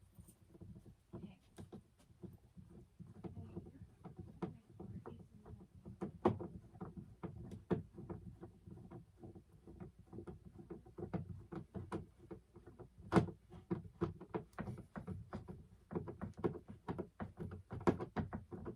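Irregular clicks, taps and knocks of hands working hardware and outfitting against a plastic kayak hull, with sharper knocks about six seconds in and again around thirteen seconds in.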